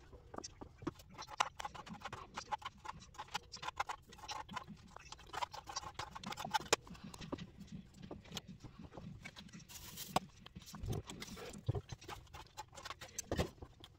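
Food being prepared on a kitchen counter: irregular taps, knocks and clicks of a knife and vegetables being handled, with a short rustle about ten seconds in.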